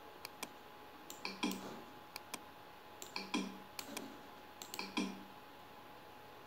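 Computer mouse clicking in short quick clusters, each cluster with one heavier click, over a faint steady electrical hum.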